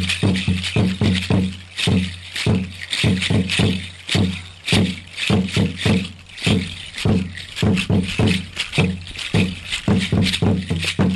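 Music for a Mexica dance: a deep drum beaten in quick, even strokes with rattles shaken on the beats, in runs broken by brief pauses.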